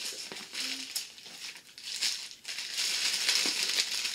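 Packaging crinkling and rustling as hands rummage through small packets of craft cutting dies. A few sharp crackles, and the rustling grows louder and denser about three seconds in.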